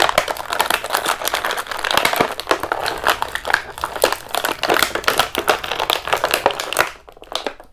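Plastic toy packaging crinkling and popping rapidly as an action figure is pulled free of it, stopping suddenly about seven seconds in.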